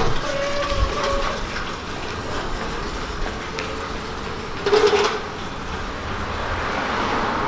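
Sack truck carrying a metal beer keg wheeled over concrete and paving: its small wheels rumble and rattle steadily, with a louder clank about five seconds in.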